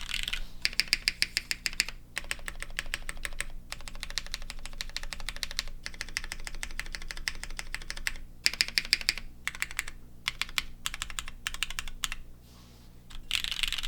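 Typing on a Frog Mini mechanical keyboard: fast runs of key clicks during a typing test, broken by short pauses, with a longer lull near the end.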